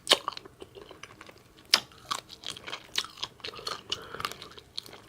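Close-miked open-mouth chewing with wet lip smacks and crunching while eating, as irregular sharp clicks; the loudest smacks come just after the start and near the two-second mark.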